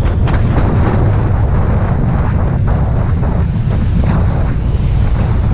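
Wind buffeting the microphone over the steady road and engine noise of a moving motorcycle, a loud, unbroken rumble.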